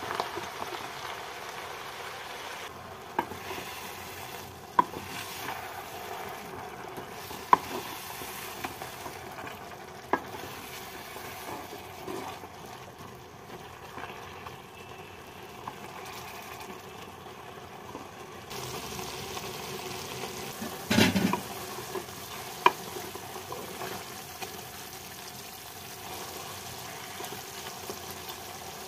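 Greens sizzling in a pan as their water cooks off, stirred with a wooden spatula that knocks sharply against the pan every few seconds. A louder clatter comes about two-thirds of the way in.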